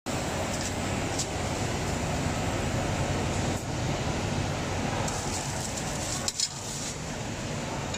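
Steady hum and whir of factory machinery, likely the hydraulic press's power unit running, with a few light clicks as metal parts are handled, about a second in and again toward the end.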